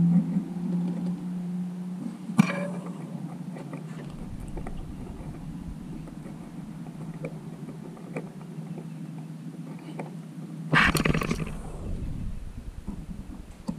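Small metal clicks of a thin screwdriver working a screw out of the feed dog of a Consew 226 industrial sewing machine, with a sharp click a couple of seconds in and a louder clatter about eleven seconds in, over a steady low hum.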